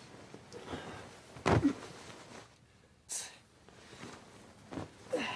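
Bedding rustling as a man sits up from a futon, with a short low vocal sound from him about a second and a half in and a brief breathy hiss near the middle.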